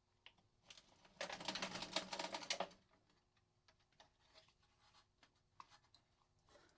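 Hands working on the dehumidifier's parts and wiring: a rustling, scraping burst about a second in that lasts about a second and a half, then a few faint clicks and taps.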